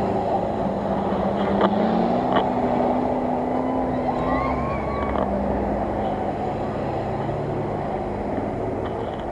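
Off-road SUV engine running steadily, its revs rising about two seconds in and dropping back a couple of seconds later, with two short knocks early on.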